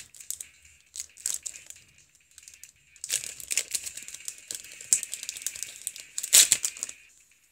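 A trading-card booster pack's wrapper crinkling as it is handled and opened. A couple of sharp crackles come about a second in, then a longer stretch of crinkling with the loudest crackle near the end.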